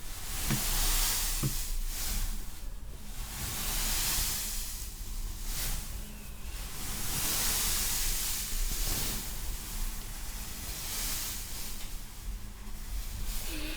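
Sea waves washing in: a rushing hiss that swells and ebbs every second or two.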